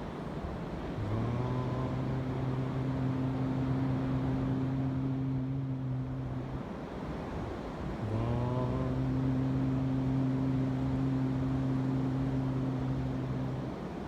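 A man's low voice chanting chakra mantras in vocal toning: two long held tones, each sliding up into a steady pitch and held about five seconds. Surf and wind hiss run underneath.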